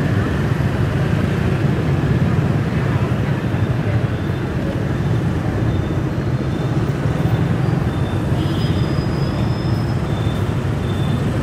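Motor scooter riding in dense city traffic: a steady low rumble of engine, road and surrounding motorbikes. From about two seconds in, a faint high beep repeats roughly every 0.8 s.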